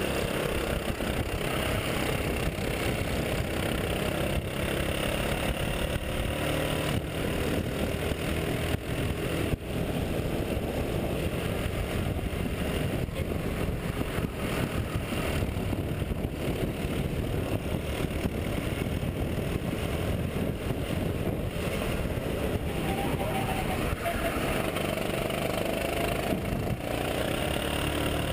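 Sodi rental kart's four-stroke engine running under racing load, heard close up from an onboard camera, its pitch rising and falling through the corners, over steady wind and track noise.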